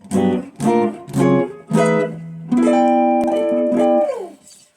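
Guitar played in the key of G: four plucked notes, then a chord held for over a second that slides down in pitch as it fades.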